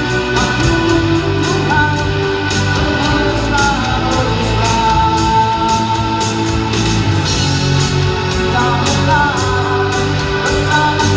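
Live rock band playing amplified: electric guitar, bass and drums, with a held melody line near the top and a singing voice.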